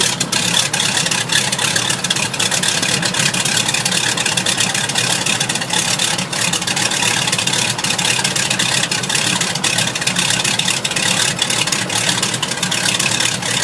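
Steady engine drone with a scattering of faint crackles throughout, like a running engine at an airfield.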